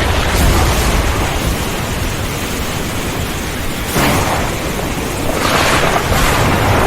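Heavy rain pouring with thunder rumbling low underneath; sudden sharper cracks of thunder break in about four seconds in and again a second or so later.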